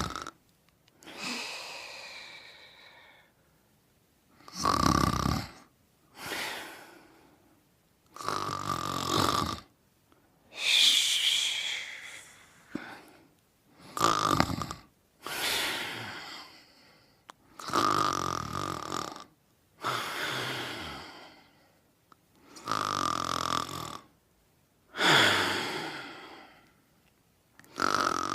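Snoring in sleep: a snore and a breath in each cycle, repeating about every four to five seconds with short quiet gaps between.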